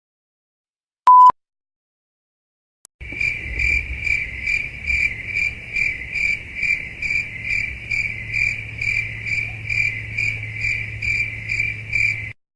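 A short single beep, then from about three seconds in the classic crickets-chirping sound effect: an even, pulsing chirp about two and a half times a second, the stock cue for an awkward silence, which cuts off suddenly near the end.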